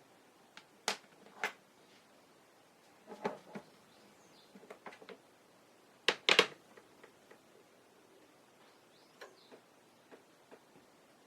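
Scattered sharp clicks and taps of small tools and plastic model-kit parts being handled at a workbench, the loudest a quick double click about six seconds in.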